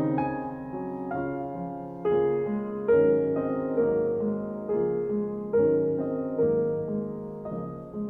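Slow, gentle piano music: single notes and chords struck a second or so apart and left to ring and fade.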